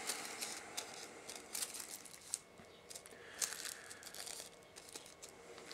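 Soft crinkling and rustling handling noise with scattered small clicks, as of something being handled out of sight.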